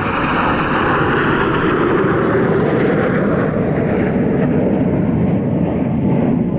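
Blue Impulse formation of Kawasaki T-4 jets passing overhead trailing smoke: a loud jet roar whose pitch slowly falls as the formation goes by.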